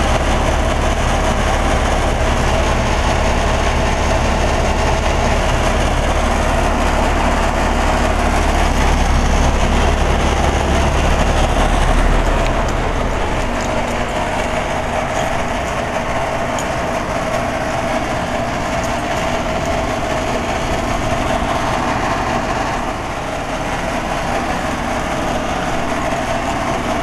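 Outdoor unit of a 2011 Broan (Nordyne) 3-ton heat pump running: steady compressor hum under the rush of the condenser fan. The low hum drops about twelve seconds in.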